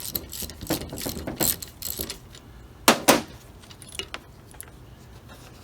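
Metal clinks and rattles of a hand tool and the banjo bolt as the bolt is loosened and taken out of a Holley 1850 carburettor's fuel inlet, with two sharp clinks close together about three seconds in.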